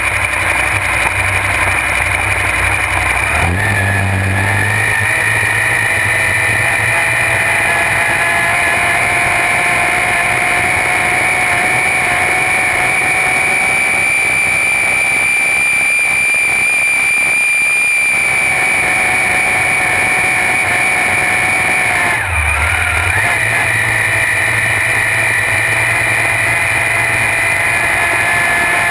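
Supercharged 1450 hp alcohol-burning engine of a V-drive drag boat running at speed. A high, loud whine, which the owner puts down to the gear drive or blower, climbs slowly in pitch, drops briefly about two-thirds of the way through, then climbs again.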